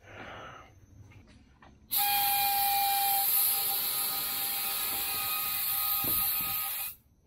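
Harbor Freight gravity-feed paint spray gun spraying: a loud rush of compressed air with a steady whistling tone over it, starting about two seconds in and cutting off sharply about five seconds later.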